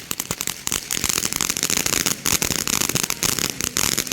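Fireworks crackling: a rapid, unbroken run of sharp pops and cracks, many each second.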